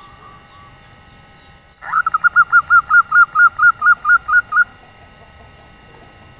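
Female zebra dove (perkutut) giving the rapid staccato 'nyelir' call: about a second in after a few faint notes, a fast run of about a dozen short, clipped notes at roughly four to five a second, lasting nearly three seconds and then stopping.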